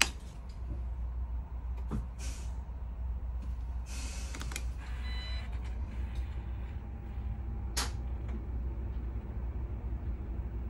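MAN Lion's City city bus diesel engine idling with a steady low rumble. A sharp click comes as a dashboard switch is pressed, and short hisses of compressed air sound about two, four and eight seconds in, with a brief electronic tone around five seconds.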